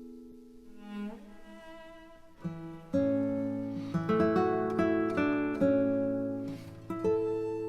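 Instrumental background music: plucked guitar notes over low sustained string tones, quiet at first and coming in fuller about three seconds in.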